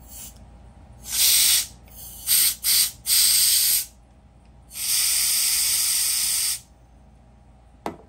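Compressed air sprayed in five hissing bursts, two of them very brief, the last and longest nearly two seconds, blowing out the full ceramic bearing of a tungsten fidget spinner to clear grit from a bearing that feels gravelly.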